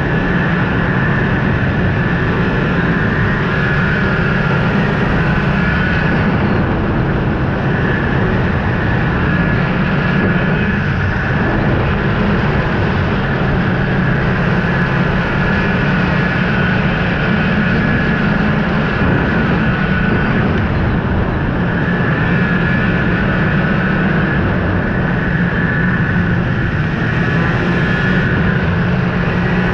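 Snowmobile engine running steadily while the machine cruises along a packed snow trail.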